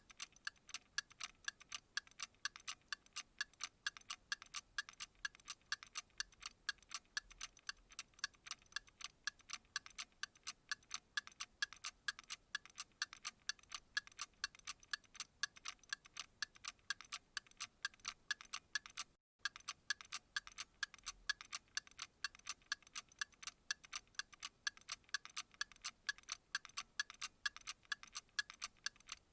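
Clock ticking steadily and evenly, several ticks a second, with a brief dropout about two-thirds of the way through.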